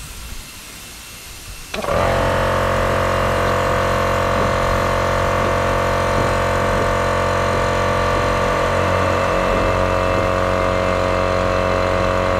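Small electric air compressor kicks in about two seconds in and runs steadily with a motor hum, pumping air down into the well pipe to drive the sludge bailer.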